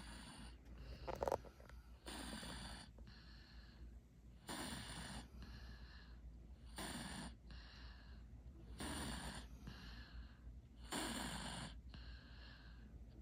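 A father and young daughter snoring together: loud snores about every two seconds, with fainter breaths and snores in between. A brief sharp click about a second in.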